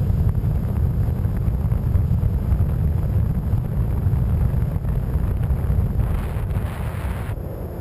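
In-flight airflow buffeting the microphone of a camera mounted on the wing of a Skywalker 1900 FPV model plane: a heavy, fluttering low rumble under a steady hiss. A brighter hiss joins about six seconds in and cuts off suddenly about a second later.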